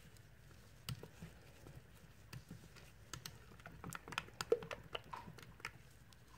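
Faint, irregular clicks and scrapes of stirring soap batter in a stainless steel cup, busiest around four to five seconds in, with one short squeak in the middle.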